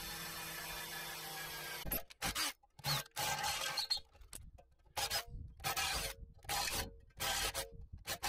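Cordless drill boring into the steel wall of an old air-compressor tank through a hinge's mounting holes. It runs steadily for about two seconds, then goes in short stop-start bursts, about eight of them.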